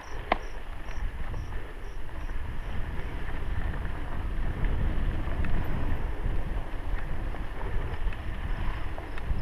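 Wind buffeting a helmet-mounted GoPro with the steady rumble of a mountain bike's tyres rolling over dirt singletrack. Occasional light clicks and rattles from the bike, the sharpest just after the start.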